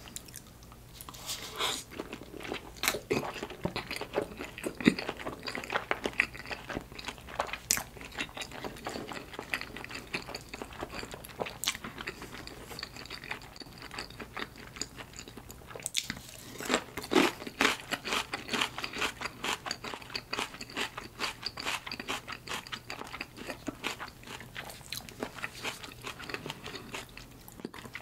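Close-miked chewing of giant salmon sushi: a dense, irregular run of clicking, wet mouth sounds, busiest about three to five seconds in and again around sixteen to nineteen seconds in.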